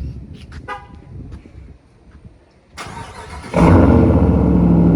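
A 2021 Ram 1500's 5.7-litre Hemi V8 starts through a newly fitted Borla ATAK aftermarket exhaust. The starter cranks briefly about three seconds in, then the engine catches and runs loud and steady at idle.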